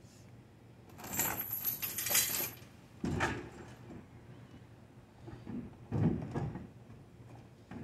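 Gear being shifted in a pickup truck bed: a burst of rustling plastic bags about a second in, then a few knocks and clinks, the heaviest about six seconds in.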